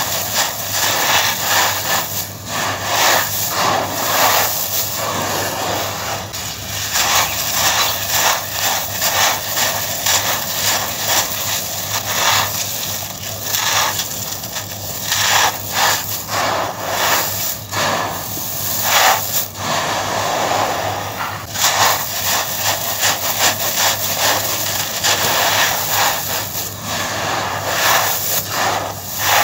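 Dry, coarse sand crushed and crumbled in bare hands and poured back onto a sand pile: a steady gritty crunching and trickling made of many small crunches.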